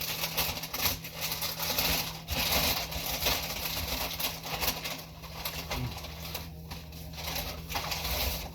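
A person eating close to the microphone: wet chewing and crackly clicking mouth noises, busiest in the first half and thinning out near the end, over a faint steady low hum.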